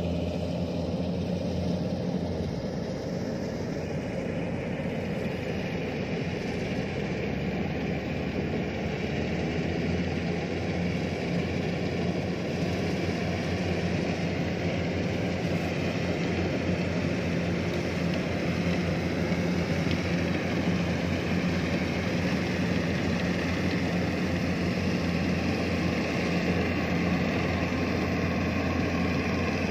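Kubota DC-105X combine harvester's diesel engine running steadily while it harvests rice, a constant unbroken drone.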